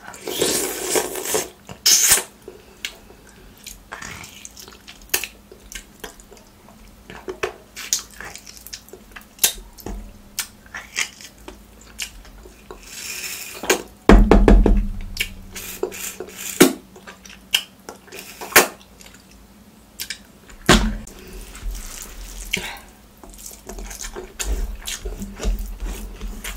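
Close-up eating by hand: wet chewing and lip smacks from mouthfuls of rice and mutton curry, with squelching as fingers mix the rice and curry on a banana leaf. A couple of dull thumps come about halfway through.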